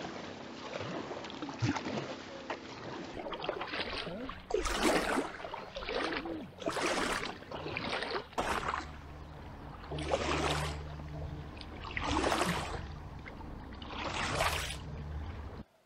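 Double-bladed kayak paddle strokes: each stroke is a swish of splashing and dripping water, coming about every one and a half to two seconds. A low steady hum sits underneath in the second half.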